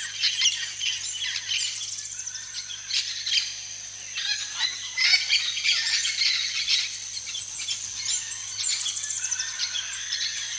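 Several birds chirping and calling in short, quick phrases, with a steady high-pitched tone underneath.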